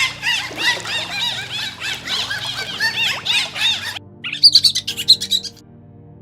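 Many small birds chirping at once, a dense tangle of overlapping short chirps. About four seconds in it cuts to a different, higher, quick run of chirps lasting about a second and a half, then stops.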